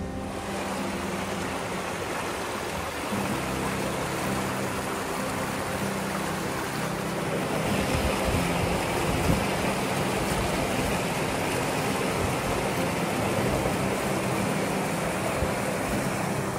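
Mountain stream rushing over rocks in small cascades, a steady close-up water noise that grows a little louder about eight seconds in.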